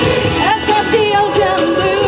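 A large rock choir, mostly women's voices, singing a song together.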